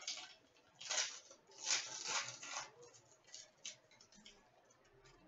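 Hockey card pack wrapper crinkling and being torn open by hand, in rustling bursts about a second in and again around two seconds, followed by a few light ticks as the cards are handled.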